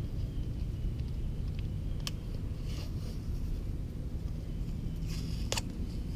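Handling noises over a steady low rumble: a few sharp clicks and two short raspy scrapes, one about two and a half seconds in and a longer one ending in a click about five and a half seconds in.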